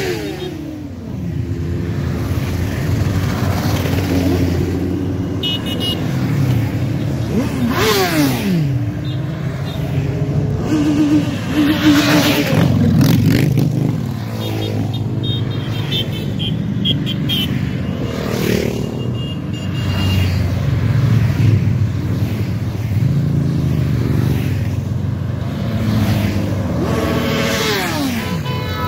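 A stream of motorcycles riding past one after another, their engines running at steady cruising speed. The pitch of each bike drops as it goes by, most clearly about 8 seconds in and again near the end.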